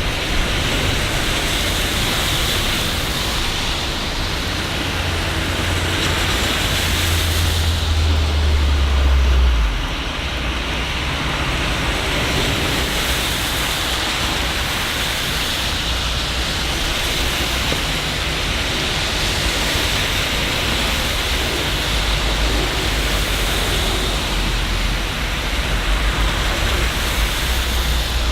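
Steady, heavy city rain hissing without a break. Under it a low rumble builds and cuts off sharply about ten seconds in, and a fainter one returns near the end.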